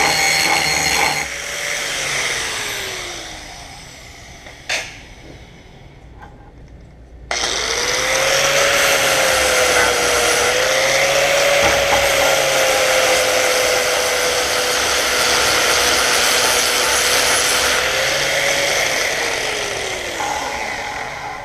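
Electric grinder with a sanding wheel, sanding down a brazed repair on a cast iron part. It winds down about a second in, stays off for several seconds apart from a single knock, starts again abruptly about seven seconds in, runs with its whine wavering slightly under load, and winds down again near the end.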